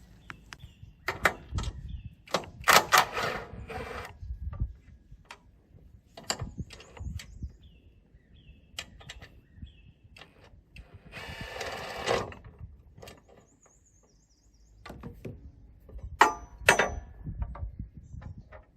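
Irregular metal clanks and knocks from tools on the steel of a sawmill log backstop as it is unbolted and taken off. A rasping burst lasting about a second comes near the middle.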